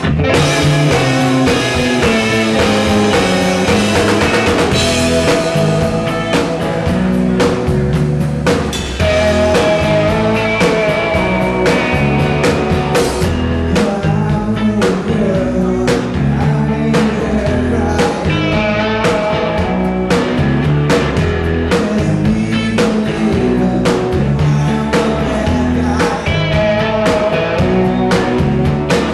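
Live rock band playing a song: two electric guitars and a drum kit, with a man singing lead. The full band kicks in right at the start.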